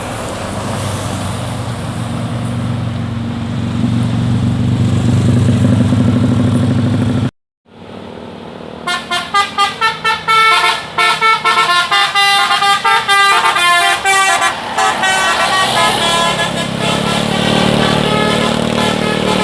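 Bus engine running as the bus approaches, growing louder, then cutting off abruptly at an edit. About a second and a half later a multi-tone musical air horn ('telolet') plays a quick run of short blasts and then a longer melody for about six seconds, with bus engine noise continuing underneath and after.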